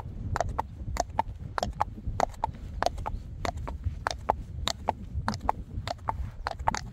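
Friesian horse walking on an asphalt road: an even clip-clop of hoof strikes, about four a second.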